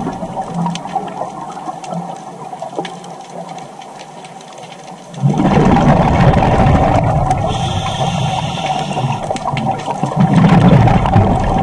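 Scuba regulator exhaust: bubbles from the diver's exhaled breath rushing past the underwater camera. The bubbling starts suddenly and loudly about five seconds in, after a quieter stretch.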